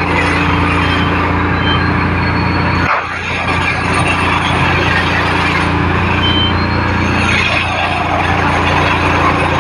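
A motor vehicle engine running steadily, with a brief dip in level about three seconds in.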